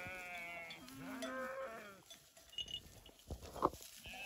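Sheep bleating, several overlapping calls in the first two seconds, then a single short sharp knock near the end.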